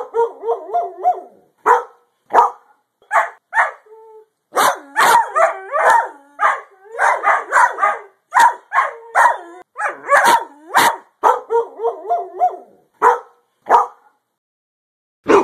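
Greyhound barking in quick runs of short barks, with brief pauses between the runs.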